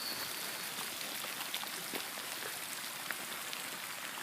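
Heavy rain falling: a steady hiss with many scattered sharp drop hits close by.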